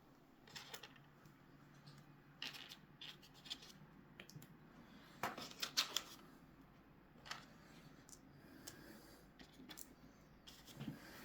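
Faint, scattered clicks, taps and scrapes of small plastic parts being handled and fitted, in short clusters with the loudest about six seconds in.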